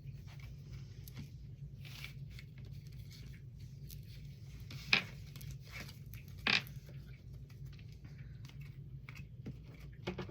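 Faint rustling and handling noises over a steady low hum, with two sharp snaps about five and six and a half seconds in.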